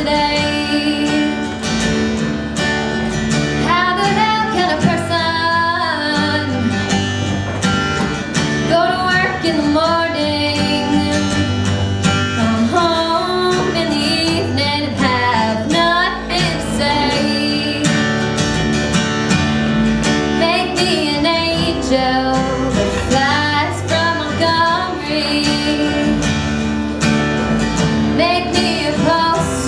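Girl singing an original song to two acoustic guitars.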